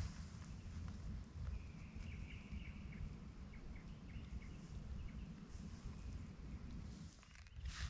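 Faint forest ambience: a low, steady wind rumble on the microphone, with a bird calling faintly from about one and a half to three and a half seconds in.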